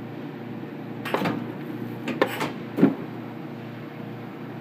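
Pedal-operated factory welder working, with a few sharp clunks over a steady low machine hum: one about a second in, two close together around two seconds, and a loud one near three seconds.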